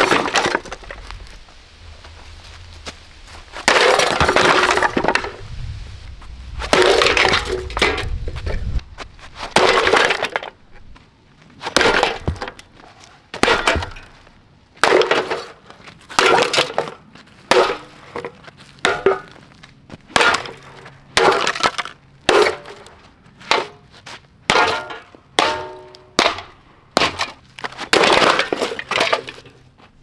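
A Westinghouse Comet ceiling fan being smashed to pieces: about twenty sharp crashing blows, its plastic housing, light cover and blades cracking and breaking. The first blows come several seconds apart with a long crackling break-up after each; later ones are short and quicker, about one a second near the end.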